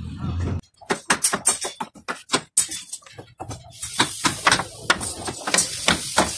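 Irregular series of sharp wooden knocks and taps, several a second at times, as a hammer and hands knock plywood door panels into a wooden frame. A hiss rises in the second half.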